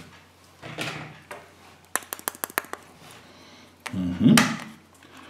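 Yellow plastic Kinder Surprise toy capsule being shaken, the toy parts inside rattling in a quick run of about seven clicks around two seconds in, with handling rustles and a louder knock of the capsule in the hands near four seconds.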